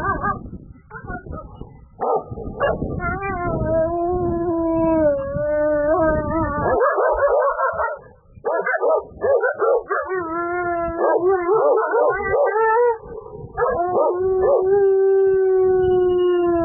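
A wolf howling: three long held howls, each drifting slightly in pitch, with a low rough rumble under the first.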